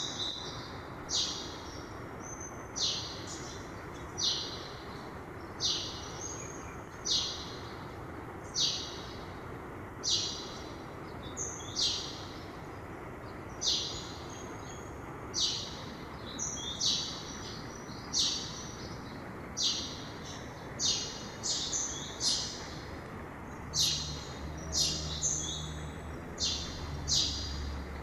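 A songbird repeating a short, high call about every second and a half over the steady rush of a mountain river. A low hum joins near the end.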